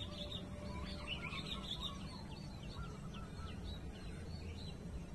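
Small birds chirping, with quick, high chirps repeated several times a second over a steady low background rumble.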